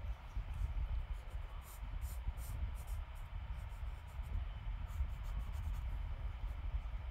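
Charcoal pencil scratching on textured drawing paper in short, irregular strokes, over a steady low rumble.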